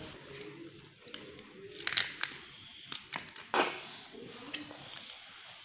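Knife scraping scales off a fish and knocking on a wooden chopping block: a series of short, sharp scrapes and clicks, the loudest a little past the middle.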